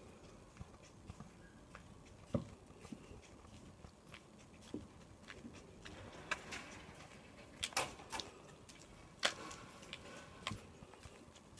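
Faint footsteps on asphalt with scattered clicks and taps of handling noise from a handheld camera, the sharpest taps coming about two-thirds of the way through.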